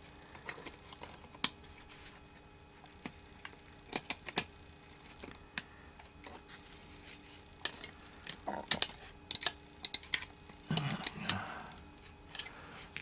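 Small metal tools clicking and scraping against a laptop hard drive's head-actuator magnet assembly as it is pried at: irregular sharp ticks and taps, some in quick little clusters.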